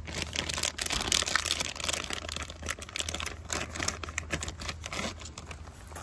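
Clear plastic packaging bag crinkling irregularly as the dual-battery balancer and its cables are pulled out of it, busiest about a second in.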